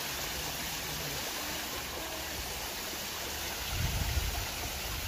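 Cold mountain spring water pouring from several pipe spouts into plastic tubs and a stone trough, a steady splashing. A brief low rumble comes in about four seconds in.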